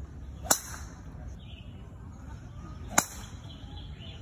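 Two golf tee shots: a club face striking the ball off the tee with a sharp crack about half a second in, then a second crack about two and a half seconds later.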